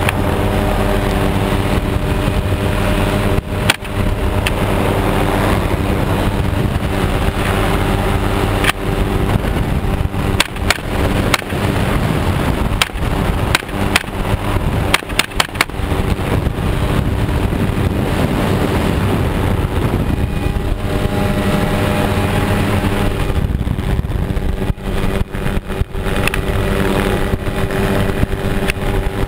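Helicopter in flight, its engine and rotor making a steady drone with several held tones, under a heavy rush of wind over the microphone and brief dropouts in the sound.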